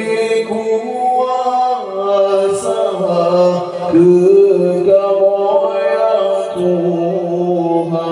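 A man singing an Acehnese qasidah into a microphone, in long held notes that slide from pitch to pitch in a chanted, melismatic line.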